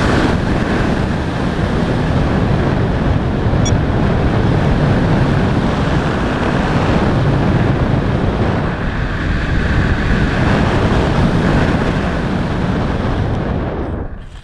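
Loud, steady wind rushing and buffeting over the microphone, dropping away briefly near the end.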